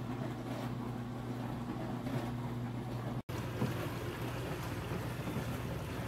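KAPAS portable countertop dishwasher running a wash cycle: a steady motor hum under the hiss of water spraying inside. The sound cuts out for an instant about halfway through, then a similar steady hum and water noise carries on.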